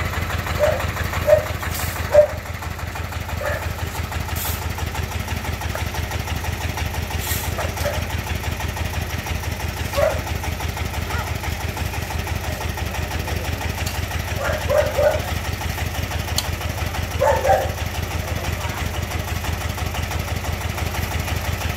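Single-cylinder diesel engine of a công nông farm truck idling with a steady, rapid pulse, with a few sharp knocks of shovels working in the sand, two of them loudest about a second and two seconds in.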